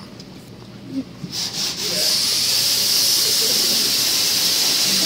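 A short knock about a second in, then a steady, loud hiss that starts about a second and a half in and keeps going.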